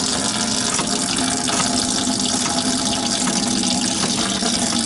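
Antifreeze draining from a 2000 Jeep Wrangler TJ's radiator through the opened drain petcock, a steady stream splashing into a bucket below.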